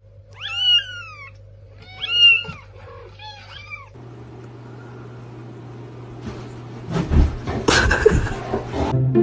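A cat meowing three times, each meow rising and then falling. Rustling and a few knocks follow in the second half.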